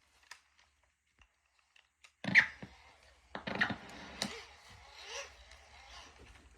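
A few faint clicks, then from about two seconds in a run of sharp knocks and clicks with rustling in between, over a faint low hum; the loudest knock comes as it starts.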